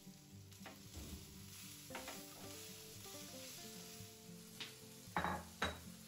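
Food sizzling in a pan while a utensil stirs and scrapes it, a few strokes spread through, the two loudest near the end, over soft background music.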